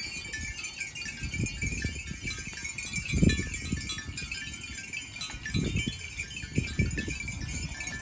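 Many bells on a walking herd of water buffalo clinking and ringing in an irregular jangle, with a few low rumbles partway through.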